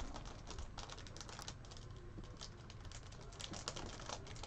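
A stack of Upper Deck hockey trading cards being flipped through by hand: quick, irregular light clicks and slides of card stock against card stock.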